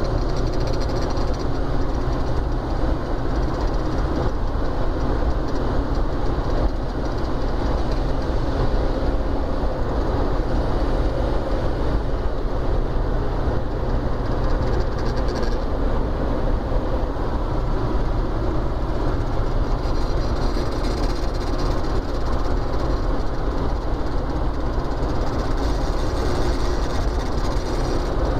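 Volkswagen Gol G4 running with a strange, steady mechanical noise from its gearbox, a fault that three mechanics have not cured.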